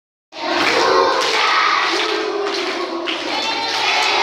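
A large group of children's voices at once, loud and overlapping with no clear words. It starts abruptly a moment in.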